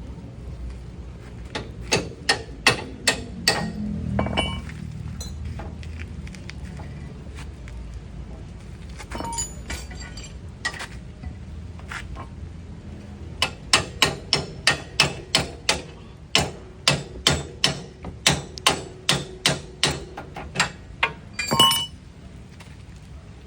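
Hand hammer striking metal suspension parts in runs of sharp blows, about two a second, with a metallic clink. The longest run comes in the second half and ends with the loudest, ringing blow.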